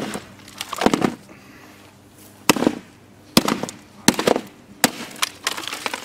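Claw hammer smashing the charred plastic housing of a microwaved clock radio resting on a plywood board: about six hard blows, roughly a second apart, with a few lighter knocks near the end.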